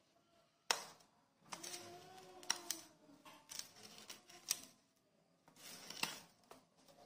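Knife sawing through the crisp crust of a freshly baked white loaf, the crust crackling in a run of sharp clicks over several strokes.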